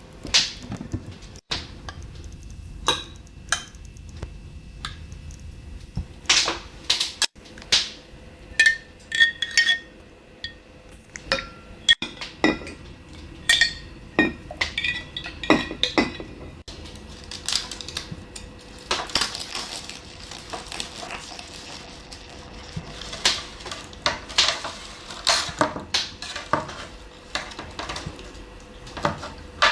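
Cutlery and dishes being handled: a long irregular run of sharp clinks, taps and knocks, some ringing briefly.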